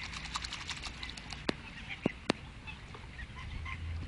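Rough collie puppy paddling through lake water: quick light splashing and dripping in the first second and a half, then a few sharp clicks, with short chirping calls from waterbirds on the water.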